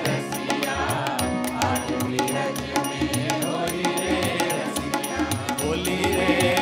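Choir singing an Indian devotional song with tabla drumming, the voices together over a steady drum pattern. Near the end the song closes and applause starts.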